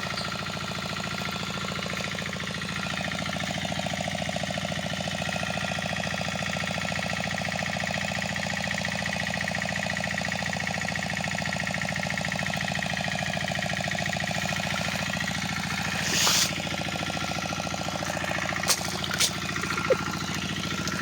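Boat engine running steadily at low speed. About sixteen seconds in there is a brief loud rush of noise, and near the end a few sharp knocks.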